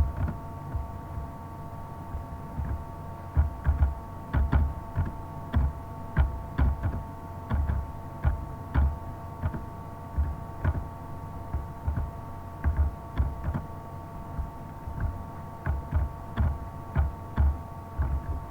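Computer keyboard keys clicking at an irregular pace, about one or two keystrokes a second, each with a low thump, over a steady electrical hum.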